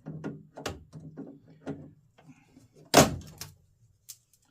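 A run of light clicks and knocks from handling the Jeep YJ hard-door latch hardware. One loud, sharp clunk comes about three seconds in, followed by a smaller knock and a click near the end.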